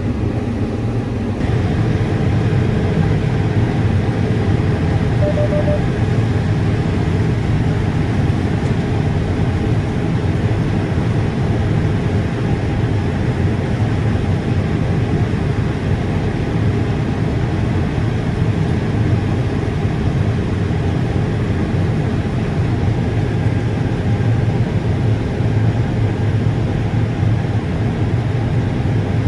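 Combine harvester running with a steady, low engine and machine drone.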